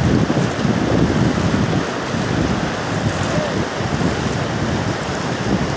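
Steady rush of floodwater flowing across open ground, mixed with wind buffeting the microphone in irregular gusts.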